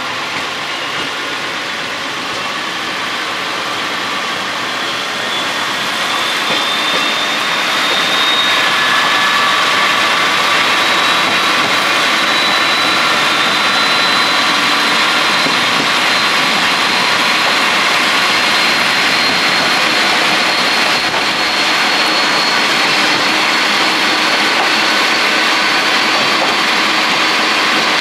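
Diesel engine of a converted KiHa 47 diesel railcar pulling away under power. It grows louder over the first several seconds, then holds steady, with a high whine that slowly rises in pitch as the train gathers speed.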